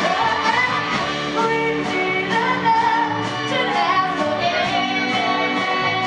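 Live band playing with a woman singing lead over electric guitar, bass and a drum kit, with a steady beat of about two drum hits a second.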